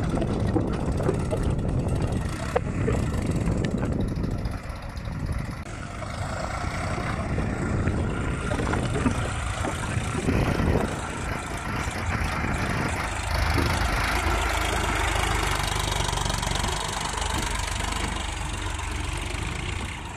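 Sonalika DI 47 RX tractor's diesel engine running under load as it pulls a fully loaded trolley of soil over rough dirt. The sound is steady and heavy, with a brief dip and then a deeper, louder stretch about two-thirds of the way through.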